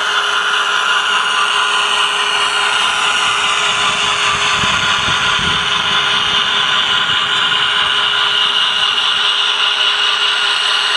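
HO scale GE Dash-9 model diesel locomotive running along the track, giving a steady whine, with a low rumble swelling about five seconds in as it passes closest.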